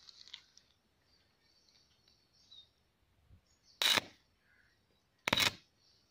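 Two short, sharp bursts of electric arcing about a second and a half apart, each about a quarter second long: a welding rod in the holder of a homemade salt-water welding rig on mains power striking an arc against steel.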